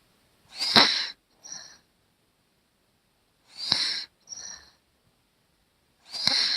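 A young child snoring in sleep through a nose stuffed up by a head cold: three wheezy, whistling snores about two and a half seconds apart, each a louder breath followed by a shorter, quieter one.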